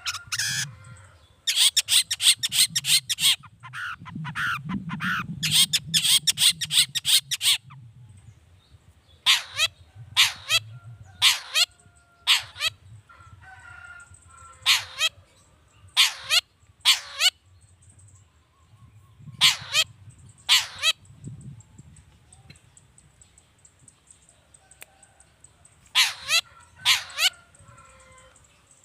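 Long-tailed shrike (cendet) giving harsh calls: two fast rattling strings of notes in the first several seconds, then single and paired harsh notes about a second apart, with pauses between.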